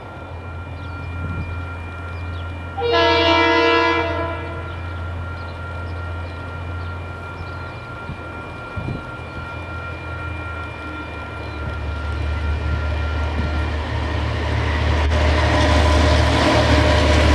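KiwiRail DC-class diesel-electric locomotive approaching: one loud air-horn blast of about a second, roughly three seconds in, over the low, steady running of its diesel engine. The engine grows louder and the wheels on the rails join in near the end as it draws close.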